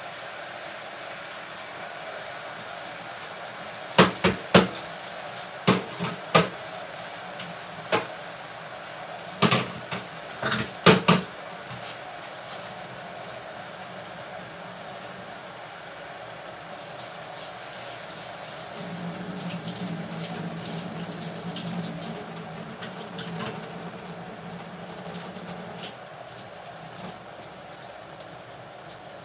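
Vegetables cooking in a pot with a steady sizzle. Between about 4 and 11 seconds there is a run of sharp knocks and clatters of kitchenware. From about 19 to 26 seconds water runs, as from a tap into a sink.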